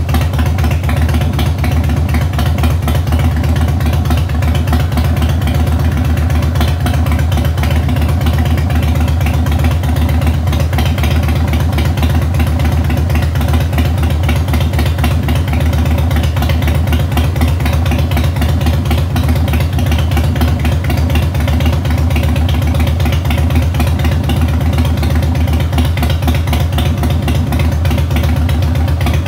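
Harley-Davidson Heritage Softail's air-cooled V-twin, fitted with a 1550 big-bore kit and 211 cams, idling steadily.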